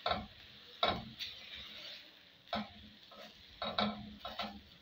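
Minced beef being stirred in a frying pan. The utensil scrapes and knocks against the pan at irregular moments over a faint sizzle.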